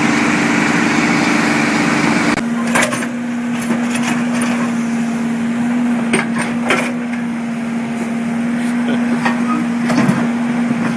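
Heavy construction machinery engine running at a steady pitch. About two seconds in, the note drops slightly and turns less hissy. Several sharp knocks or clanks come at irregular intervals after that.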